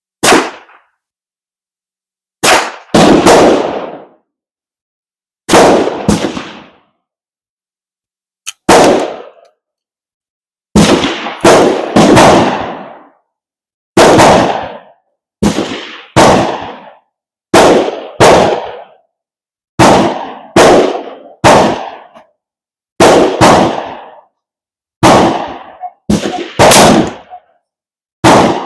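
Gunshots from several guns along a firing line, about twenty irregular shots, some in quick pairs and triples, each with a short echoing tail.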